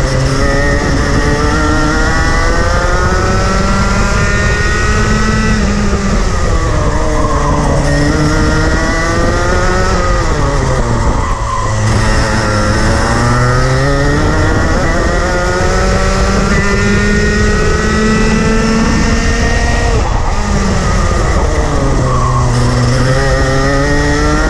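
Rotax Max Junior 125cc two-stroke kart engine heard onboard during a lap: its pitch climbs steadily up each straight, then drops sharply as the driver lifts off for corners, three times, the deepest drop about halfway through. Steady wind noise on the microphone underneath.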